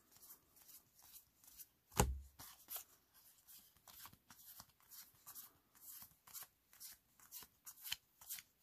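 Trading cards from a new Magic: The Gathering Commander deck being flipped through one at a time, a crisp flick about three times a second. One louder low thud about two seconds in.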